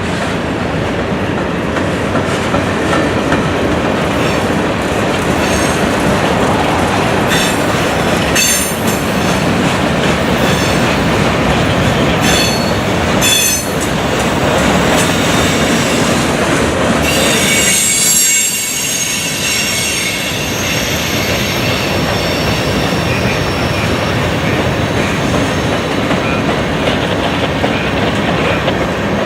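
Empty grain train's hopper cars rolling past on a curve, wheels clicking over rail joints, with a high-pitched wheel squeal setting in about two-thirds of the way through.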